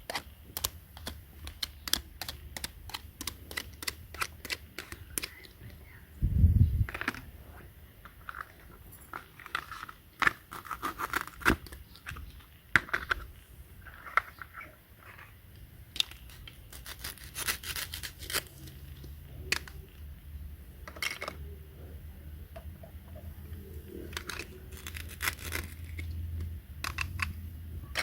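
Hands handling small objects: a run of irregular clicks, taps and light rustles, with one heavier thud about six seconds in.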